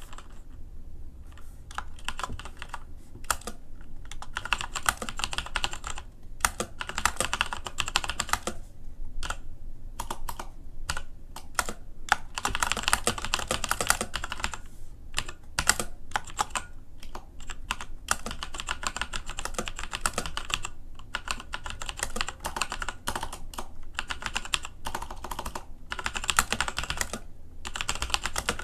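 Fast typing on a Patriot Viper V760 mechanical keyboard with Kailh Brown switches: rapid clacking keystrokes in runs of a few seconds, broken by short pauses.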